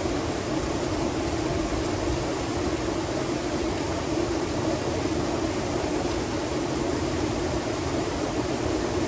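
Steady rush of flowing stream water, an even noise that does not change.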